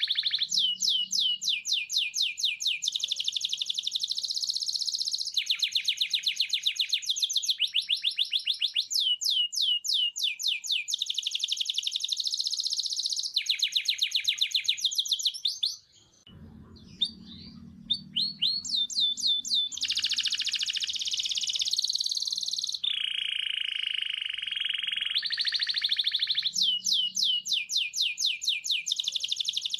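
Birds chirping in fast, regular trills of short falling high notes, with a brief pause about sixteen seconds in.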